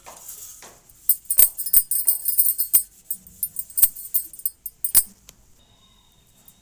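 Metallic jingling with a series of sharp clicks as a copper plate is handled and rubbed clean with cotton, starting about a second in and dying away about five seconds in.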